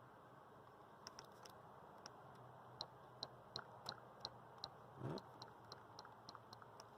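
Faint, irregular clicking of Nintendo Switch Joy-Con controller buttons being pressed during a test, about fifteen small clicks, with one soft thump about five seconds in.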